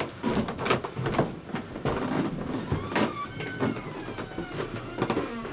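Rapid, irregular knocks and clattering, with a short squeak about three seconds in.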